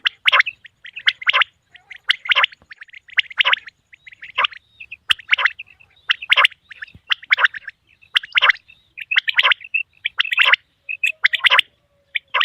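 Male common quail calling: a short phrase of quick, sharp notes, repeated about once a second.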